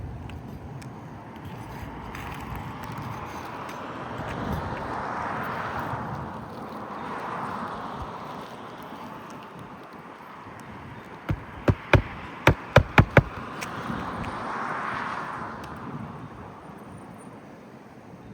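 Hammer striking roofing nails into a shingle: a quick run of about seven sharp, ringing blows within two seconds. Behind it is a rushing background that swells and fades several times.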